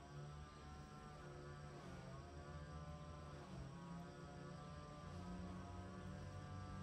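Faint small engine running in the distance, its pitch dipping and rising every second or two, over a low steady hum.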